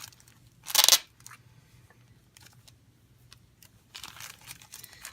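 Packaging crinkling and rustling as it is handled: one loud rustle about a second in, a quieter stretch with a few small clicks, and another rustle near the end.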